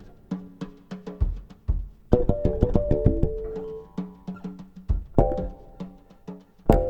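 Background music: keyboard and percussion playing a rhythmic pattern with a steady beat.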